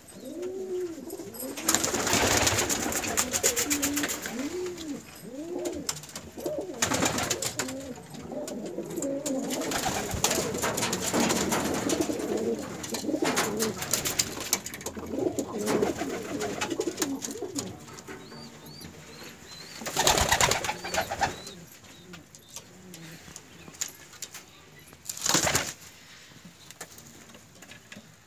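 Domestic pigeons cooing, a run of rising-and-falling coos repeated one after another. Several loud rustling noise bursts break in, the biggest two near the end.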